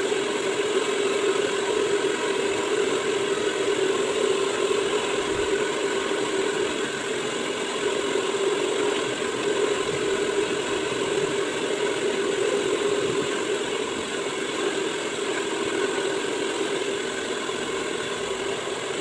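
Hand-held hair dryer blowing steadily, a continuous fan hum and rush of air as wet hair is blow-dried.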